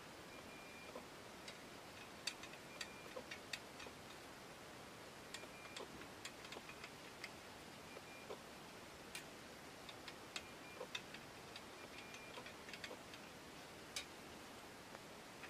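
Faint, irregular light metal clicks and taps, some with a brief high ring, from the loose brass frame and guard ring of an Optimus 1200M kerosene lantern being wiggled by hand; the frame has quite a rattling, a sign of play in its fittings.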